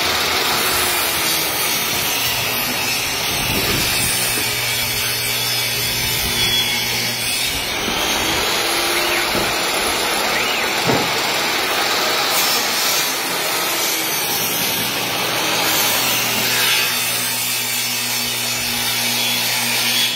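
Portable table saw running continuously while wooden panels are ripped on it. The blade noise and motor hum change as the boards go through.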